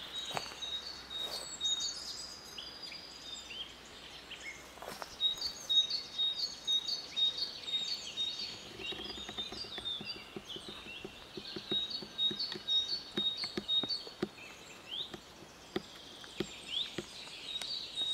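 A chorus of woodland songbirds singing in spring: many short chirps and trills over one high note repeated in quick, steady dots. From about eight seconds in there is also a run of faint, low ticks.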